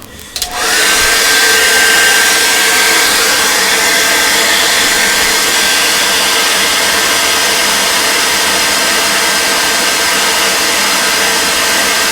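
Hair dryer switched on about half a second in, its whine rising briefly as the motor spins up, then running steadily, drying wet paint on a painting.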